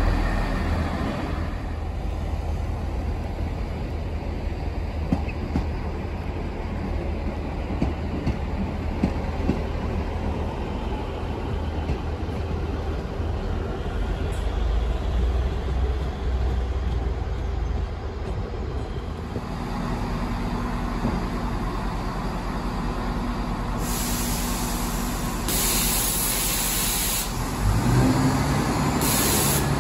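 Diesel multiple units at a station platform: a steady low rumble of a diesel train running out of the station, then low diesel engine tones. Near the end there are loud bursts of air hiss, and a CrossCountry Class 170 Turbostar's diesel engines run as it pulls in.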